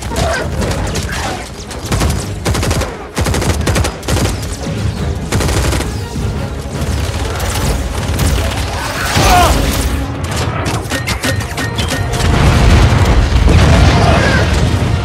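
Film battle sound mix: rapid volleys of gunfire over an orchestral score, building to a heavy explosion boom about twelve seconds in.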